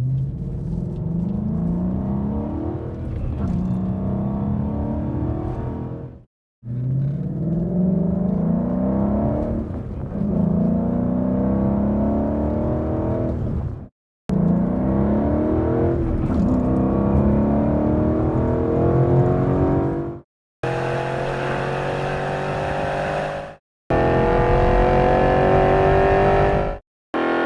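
Ford Mustang GT 5.0-litre V8 through a Borla aftermarket exhaust, accelerating hard through the gears. The note climbs, drops at each upshift and climbs again. It comes as several short clips, split by brief cuts to silence.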